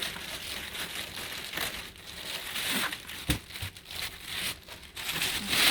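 Packaging crinkling and rustling as a vacuum cleaner part is pulled out of its wrapping, with a low knock about three seconds in.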